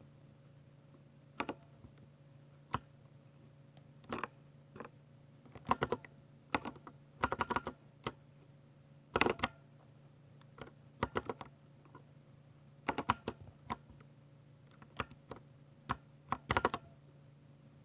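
Typing on a Ducky 60% mechanical keyboard with silver switches: quick runs of key clicks in irregular bursts, broken by pauses of a second or more. A faint steady low hum runs underneath.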